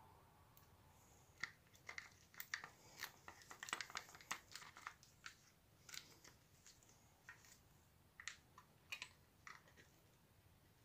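Faint clicks, taps and crinkles of gloved hands handling the opened plastic housing of a disassembled Celma electric drill and its small metal parts. The clicks come quickly at first and thin out after about five seconds.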